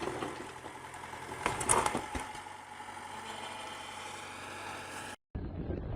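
An engine running steadily, with a brief sharp sound about 1.7 s in. Near the end it cuts off abruptly, and after a short silence a low, wind-buffeted rumble begins.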